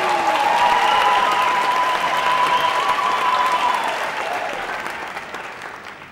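Audience applauding and cheering, with high held voices over the clapping; it swells at the start and fades away over the last couple of seconds.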